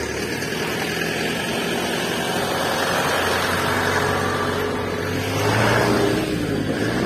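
Motor vehicle engine sound effect running steadily, its pitch rising briefly about five and a half seconds in.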